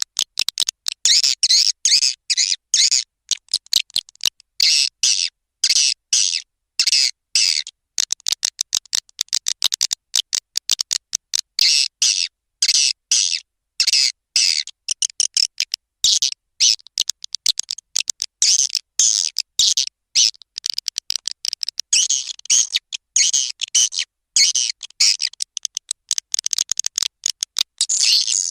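Swiftlet lure recording: edible-nest swiftlet calls played as high-pitched, rapid chattering twitters in dense strings broken by short gaps. It is the kind of call sound that farmers play through tweeters to draw swiftlets into a nest house and get them to roost.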